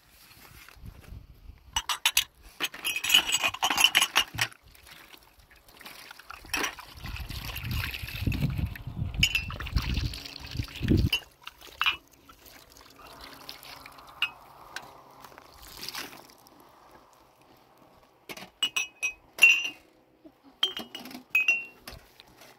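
Glasses clinking and liquid being poured: clusters of sharp clinks with a short ring near the start and again near the end, and a longer stretch of pouring noise in the middle.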